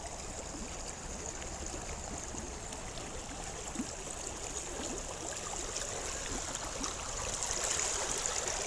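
Steady rushing sound of running water, like a small stream.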